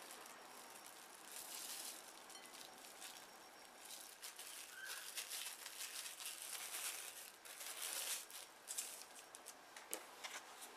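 Plastic cling film crinkling and rustling in irregular swells as hands wrap and roll soft cookie dough in it, with a few light clicks near the end.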